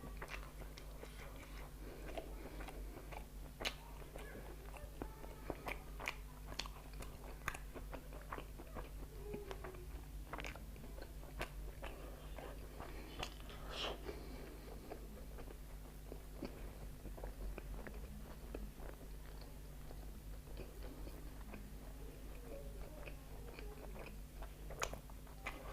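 Close-miked chewing and biting of a meal of momos and fried chicken with rice: irregular mouth clicks and crunches, over a steady low hum.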